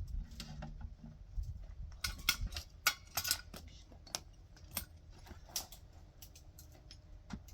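Cutlery and dishes clinking: a run of sharp, irregular clicks and clinks, busiest a couple of seconds in, as the broth is served and tasted.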